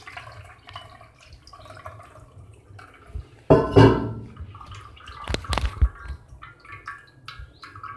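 Cold water trickling through boiled macaroni in a steel mesh strainer into a steel pot, with dripping. A loud ringing clatter about three and a half seconds in, then a few sharp metal knocks about a second and a half later, as the strainer is moved against the pot to drain.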